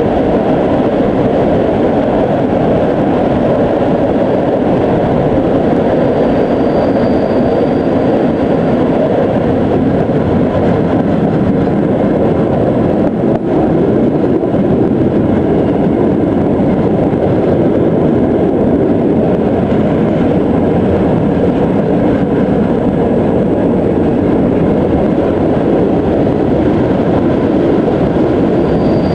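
Passenger train running along the track, heard from an open carriage window: a steady rumble of wheels on rail mixed with rushing air. A faint high whine comes in briefly about a quarter of the way in.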